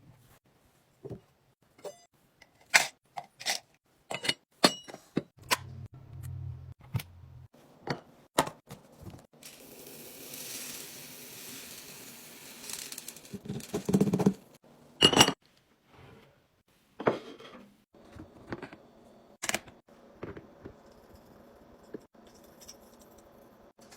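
Food packets and containers being handled and set down while snacks and fruit are arranged: a scattered series of taps, clicks and knocks, with a few seconds of steady rustling near the middle.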